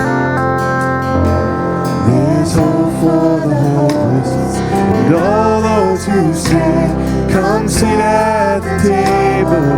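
Worship music from a church band: strummed acoustic guitar chords with a gliding, sliding melody line over them.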